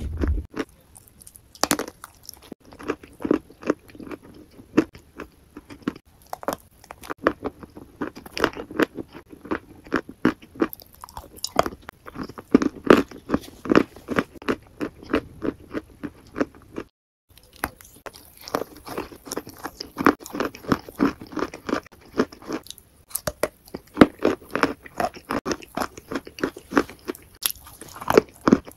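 Close-miked chewing and crunching of sauce-covered fried chicken, with many quick irregular bites and chews. The sound cuts out completely for a moment a little past the middle.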